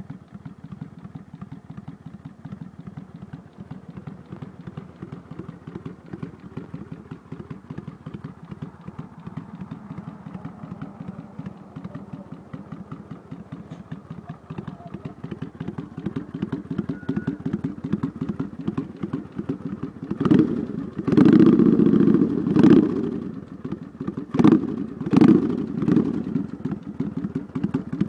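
Kawasaki Vulcan 800 V-twin exhaust idling steadily, then revved several times in the last third: one longer rev of about two seconds, followed by four quick throttle blips.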